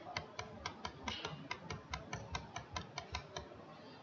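Typing on a computer keyboard: a quick run of faint key clicks, about five a second, stopping about three and a half seconds in.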